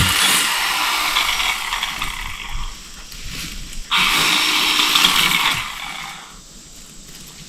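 Chainsaw running as it cuts brush and small trees. It revs up sharply about four seconds in and drops back near the end.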